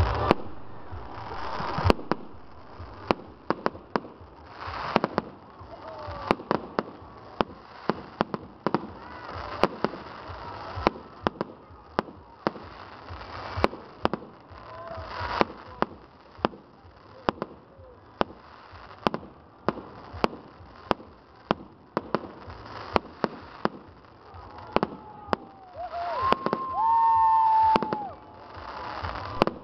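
Aerial fireworks going off overhead: a dense, irregular string of sharp bangs and crackles from shells bursting in the sky. Near the end a loud, held high tone lasts about two seconds.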